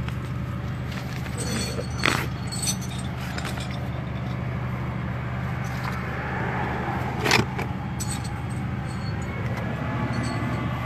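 A vehicle engine running steadily, with a few light clicks of things being handled about two seconds in and one sharp knock about seven seconds in.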